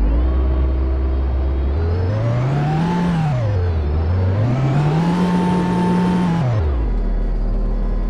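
Mazda car engine revved twice in quick succession, the first rev peaking and dropping at once, the second held a couple of seconds at high revs, then falling back to a steady idle.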